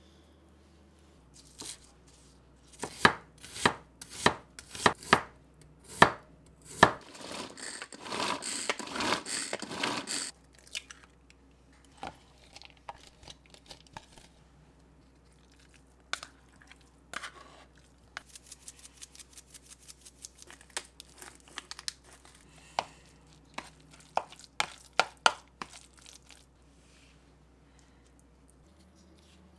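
Food preparation at a wooden cutting board: a series of sharp knife chops, about two a second, then a dense rustling clatter of chopped vegetables. Later comes a quick run of light clicks and a few sharper taps from a spoon working the mixture.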